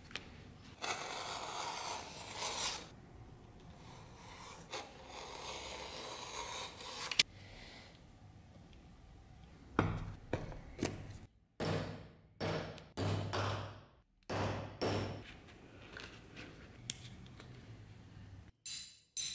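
Leather being handled, rubbed and cut on a plastic work board. Two stretches of steady scraping come first, then a sharp click a little past halfway, then a run of short scraping strokes broken by sudden silences.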